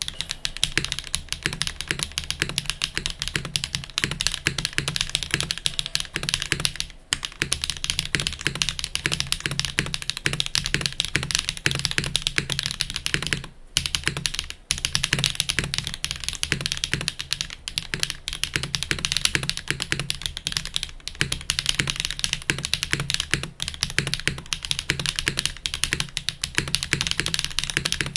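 Fast, continuous typing on a custom mechanical keyboard: stock Hyacinth V2U switches on a top-mounted aluminium plate in a polycarbonate case, with GMK keycaps. Dense rapid keystrokes, with brief pauses about seven seconds in, around the middle, and about three quarters of the way through.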